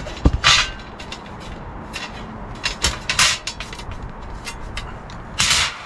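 Handling noise from a lightweight camping table and its mesh net: three short hissy rustles, one near the start, one around three seconds in and one near the end, with light clicks and knocks between them.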